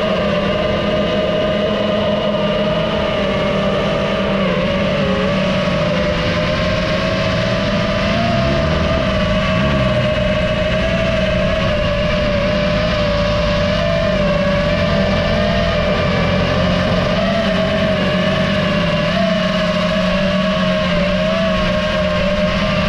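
FPV quadcopter motors whining steadily, the pitch wavering slightly with the throttle.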